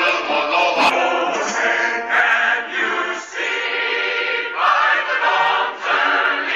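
Soundtrack music of a choir singing in short phrases.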